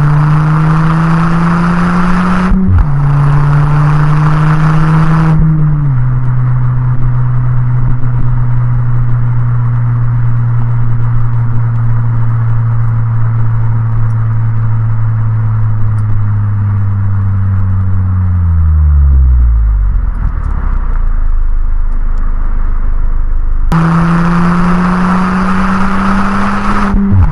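Ford Fiesta ST's turbocharged 1.6-litre four-cylinder with a Bull-X 76 mm exhaust, heard from inside the cabin: revving hard under full throttle, with an upshift about two and a half seconds in. Around five seconds in the throttle lifts and the engine drones at steady cruising revs. Around nineteen seconds the revs fall away to a low rumble, and near the end it goes back to full throttle, revs climbing again.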